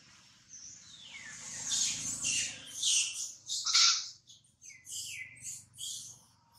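Newborn long-tailed macaque crying: a run of high, shrill squeals, each falling in pitch. The calls are loudest in the first few seconds, then come shorter and weaker.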